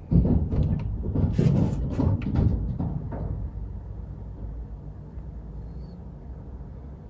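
Green monkeys moving across the roof overhead: a huge clunking, a run of heavy knocks and thumps over about three seconds, loudest at the start and dying away, sounding like a coconut falling.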